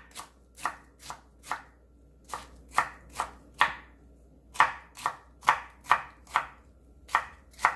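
Chef's knife slicing a cucumber into thin strips on a wooden cutting board: crisp knife strikes against the board, about two a second, in short runs of four or five with brief pauses between them.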